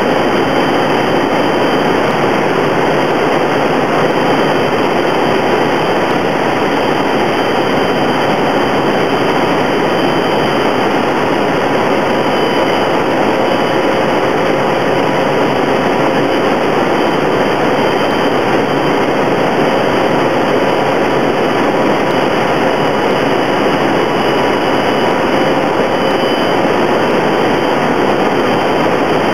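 Quest Kodiak's PT6A turboprop engine and propeller running steadily, heard inside the cockpit as a loud, even cabin drone while the plane descends on approach.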